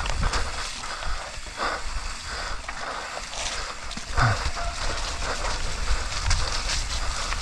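Mountain bike riding down a wet, slippery trail: tyre noise on slick ground with the chain and bike rattling over bumps and a couple of sharper knocks, under a steady rumble of wind on the camera microphone.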